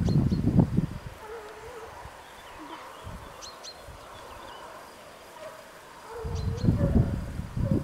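Distant hunting dogs giving voice in faint, wavering cries. Low irregular rumbling noise on the microphone covers the first second and comes back from about six seconds in.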